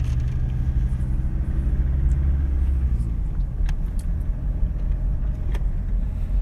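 Steady low rumble of a car driving on the road, heard from inside the cabin, with a few short knocks in the second half.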